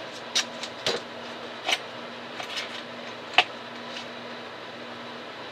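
Small clicks and taps of hands handling blue painter's tape and pressing it down over a keychain light on a cardboard work surface, the sharpest tap about three and a half seconds in, over a steady low hum.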